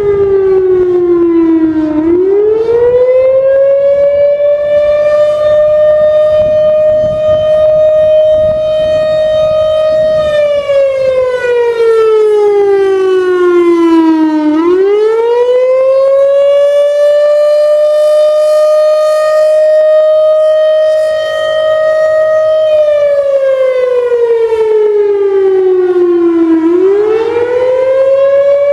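Federal Signal Thunderbolt 1000 outdoor warning siren sounding the attack signal: a loud wail that holds high for several seconds, slides down over about four seconds, then swoops quickly back up. The pitch bottoms out three times, about twelve seconds apart.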